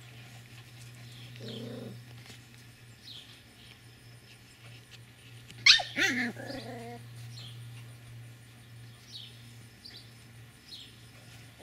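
Puppies play-fighting, with a short low growl about a second and a half in and one loud, sharp bark about six seconds in.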